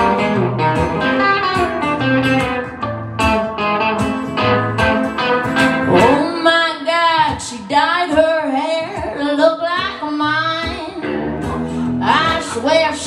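Live acoustic country song: acoustic guitar strumming with a lead guitar playing fills. About halfway in a woman's voice comes in, singing long wavering notes without clear words over the guitars, then the guitars carry on alone near the end.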